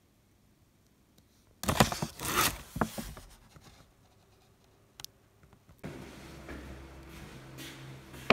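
Crinkling, rustling packaging as foil-wrapped kimbap is handled, starting about a second and a half in and lasting just over a second. A single click follows, then a steady low hum with faint rustling.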